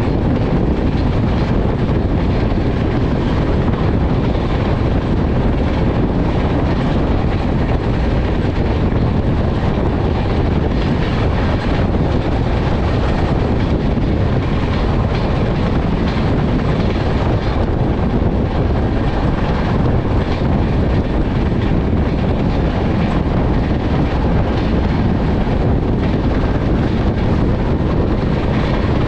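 Passenger train running at speed, heard from aboard: a steady, loud rumble and rushing noise that does not let up.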